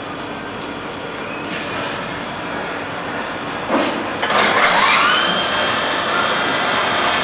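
Milling machine spindle starting up about four seconds in: a whine that rises in pitch for about a second and then holds steady, over a continuous hum of workshop machinery.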